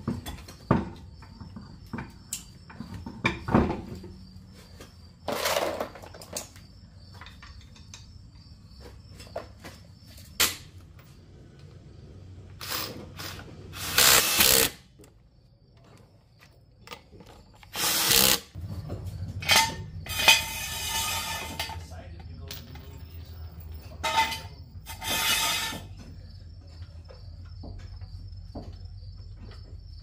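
RIDGID cordless impact wrench running in several short bursts on the lug nuts of a Jeep Wrangler's wheel, with clinks of tools being handled between bursts.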